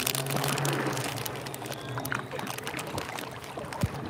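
Water splashing and trickling from kayak paddle strokes, with drips and small splashes throughout and a low steady hum underneath.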